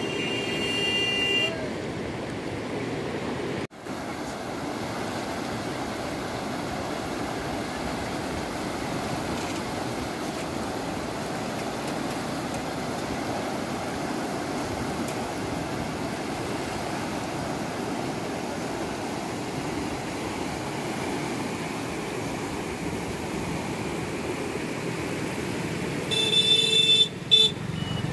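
Steady rush of muddy floodwater churning past a bridge. A vehicle horn sounds briefly at the start and honks twice near the end.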